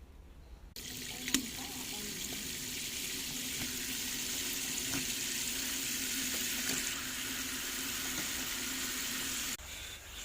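Water running steadily, as from a tap into a sink, starting abruptly a little under a second in and cutting off near the end, with a sharp click shortly after it starts.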